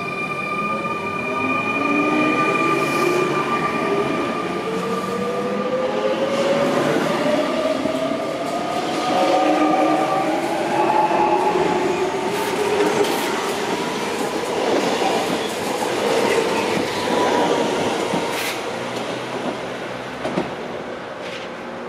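Z 8800 and Z 20900 Z2N double-deck electric multiple units pulling away. The traction equipment whines in several tones that climb in pitch over the first ten seconds as the train accelerates. Later the wheels click over rail joints, and the sound fades near the end as the train draws away.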